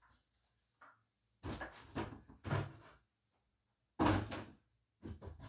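A cardboard shoe box being opened and its contents handled: a run of short knocks and rustles, the loudest about four seconds in.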